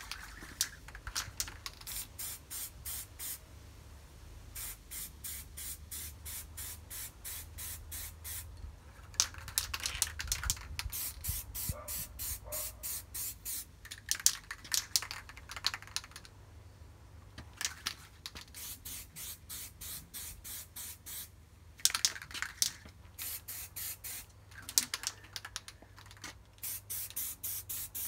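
Aerosol can of spray primer giving runs of short quick hisses, about four or five a second, with pauses between the runs as the primer is misted onto brake and clutch levers.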